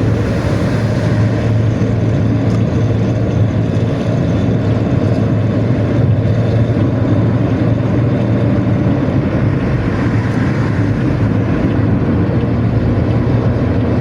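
Diesel bus engine running steadily at road speed: a loud, deep, unbroken drone with rough exhaust and road noise.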